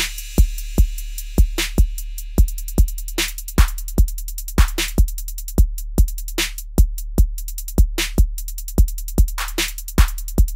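Electronic background music: a steady drum-machine beat with an even kick drum over a held low bass, and a sharper hit every second and a half or so.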